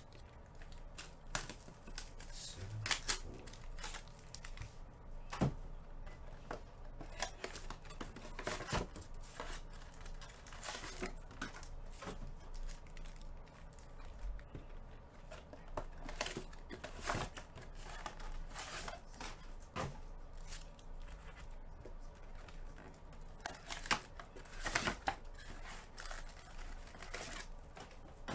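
Cardboard box of trading cards being torn open and its foil-wrapped packs crinkling and rustling as they are pulled out and stacked, in irregular short crackles and taps.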